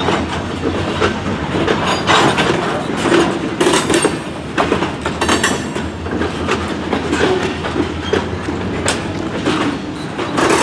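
Loaded freight train's covered hopper cars rolling past, their steel wheels clattering and knocking irregularly on the rails over a steady rumble, with a few brief higher scraping sounds.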